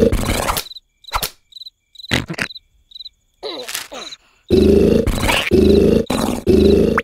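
Loud cartoon snoring in rough, rasping bursts that stops shortly after the start. A quiet gap follows with a few short cricket chirps and soft knocks, then the snoring starts again about halfway through, in repeated bursts.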